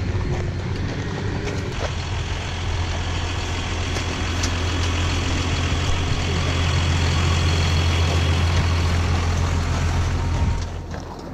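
A John Deere tractor's diesel engine running as it passes close by towing a large trailer. There is a steady low hum with a faint high whine over it. It grows louder as the tractor draws level, then drops away sharply near the end.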